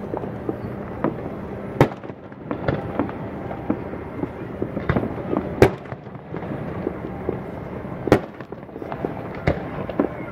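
Fireworks going off in an irregular scatter of pops and cracks, with sharper bangs about two seconds in, midway and about eight seconds in.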